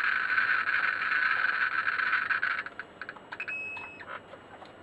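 Geiger counter clicking very rapidly, the clicks merging into a dense crackle, as its handheld Geiger-Müller probe picks up radiation from an old aircraft gyro compass. The reading is fairly radioactive. About halfway through, the crackle thins out to separate ticks.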